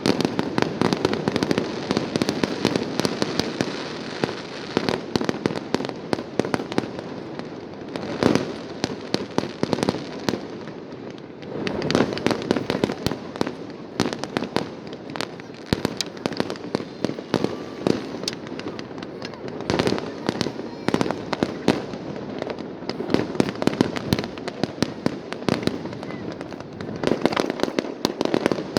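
A fireworks display: a continuous rapid crackle of shells bursting, with heavier booms that come every few seconds.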